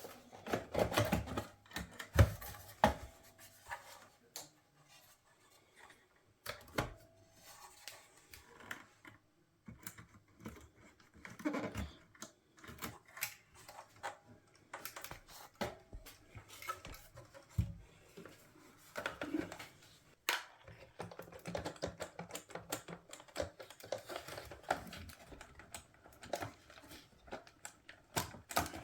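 Irregular clicks, taps and light knocks of small hard parts being handled and worked on a bench, quieter for a few seconds early on.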